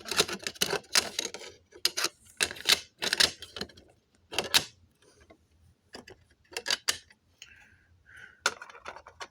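Irregular clicks, taps and light clatter from the plastic housing, lamp heads and wiring of a commercial exit sign and emergency light combo unit being handled and taken apart, busiest in the first few seconds, sparse in the middle and picking up again near the end.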